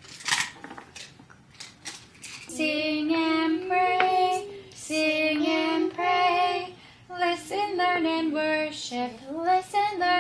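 A few sharp knocks of wooden toy blocks in the first two seconds, then someone singing a simple tune unaccompanied, in phrases of long held notes.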